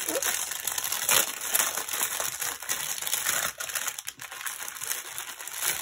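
Plastic packaging crinkling and crackling as it is handled and opened by hand.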